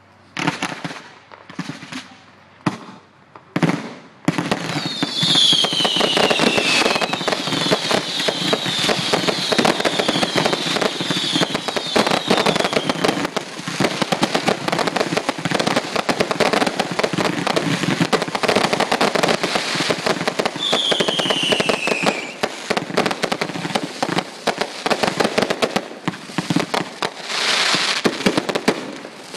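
Fireworks finale barrage: a few separate bangs, then from about four seconds in a dense, unbroken volley of bangs and crackling. Whistles falling in pitch sound twice through it, and the volley thins out near the end.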